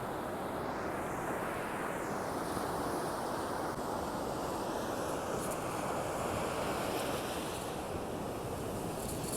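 Ocean surf: waves washing and breaking on the shore in a steady, continuous rush.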